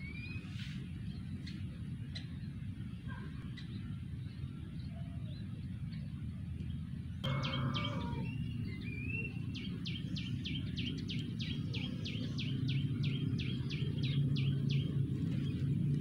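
Plaintive cuckoos calling: a few short rising whistles, then, from about halfway through, a long fast run of sharp repeated notes, about three a second. A steady low rumble runs underneath.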